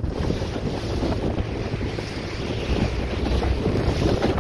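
Wind buffeting the microphone on a dinghy under way through choppy water, over a steady rush and slap of waves against the hull.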